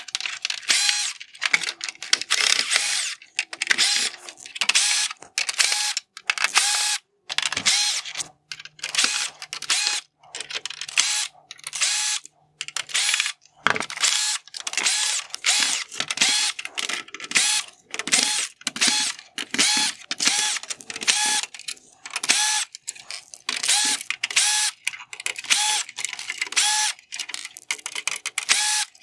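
Ryobi ONE+ 18V cordless drill/driver spinning screws out of a plastic headlight housing in a long series of short whirring bursts, about one or two a second, with brief pauses between screws.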